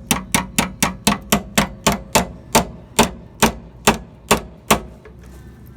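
Hammer blows driving a knurled door hinge pin into a truck door hinge. About fifteen sharp strikes come quickly at first and then slow to roughly two a second before stopping.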